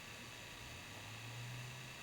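Faint steady hiss with a low hum: the recording's background noise.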